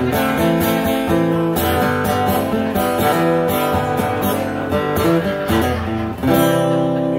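Acoustic guitar strummed steadily through the instrumental ending of a song, closing on a final chord that rings out about six seconds in.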